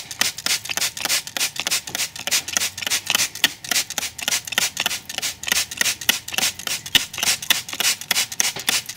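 Hand-held trigger spray bottle pumped in quick succession, each pull a short hiss of mist, as soapy water is sprayed onto model-railway track ballast to soak it before the track is lifted.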